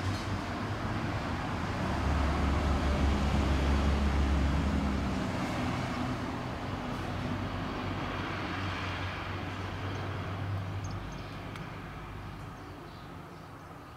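Low rumble of a passing vehicle, loudest a few seconds in and then slowly fading away.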